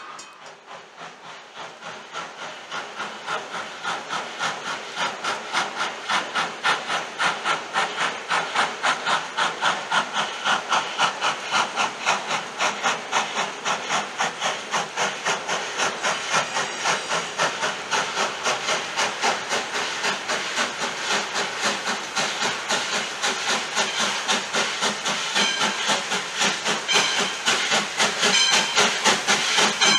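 Steam locomotive working as it approaches, its exhaust beating in a quick, even rhythm with hissing steam. The sound grows steadily louder throughout. The engine is a 1907 Baldwin 0-6-0 tank-style switcher, No. 58.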